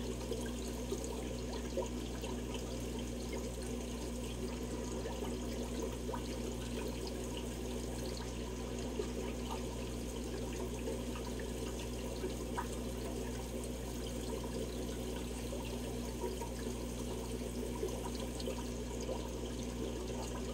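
Aquarium sponge filter bubbling steadily, air rising up its lift tube and breaking at the water surface as an even trickling, with a low steady hum underneath.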